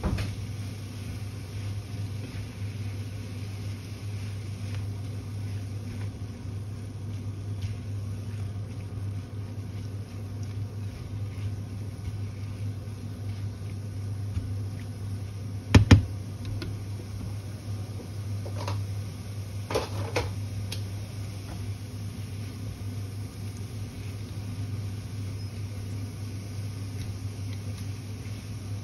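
Stir-fry being stirred and tossed in a non-stick frying pan with a silicone spatula, over a steady low hum. A sharp knock about halfway through, then a few lighter clicks a few seconds later.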